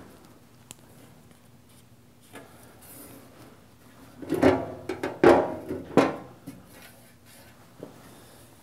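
Metal end cover of a Grizzly G0602 lathe being shifted and fitted against the headstock: a few sharp knocks with scraping between them about halfway through, otherwise only faint handling clicks.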